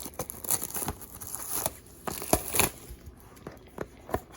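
Trading-card box packaging being torn open and handled, with crinkling and irregular rustles and clicks; the loudest bursts come a little past halfway.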